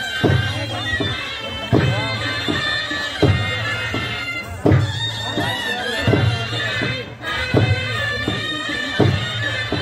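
Chhau dance music: a shehnai plays a held, reedy melody over a large kettledrum beaten with a strong low stroke about every one and a half seconds.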